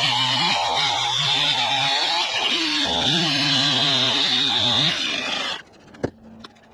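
Stihl MS 271 two-stroke chainsaw cutting through almond wood under load, its engine pitch wavering as it bogs in the cut. It stops suddenly about five and a half seconds in, followed by a single sharp knock.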